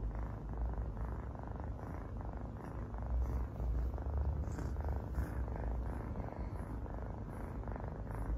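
Domestic cat purring steadily, close up.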